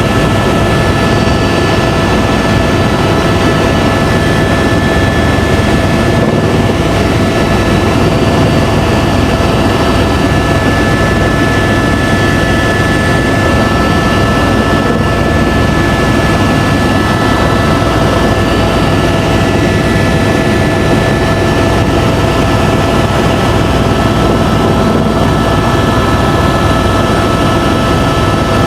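Helicopter in flight, heard from inside the cabin: a loud, steady drone of turbine engine and rotor with a constant high whine over a low rumble.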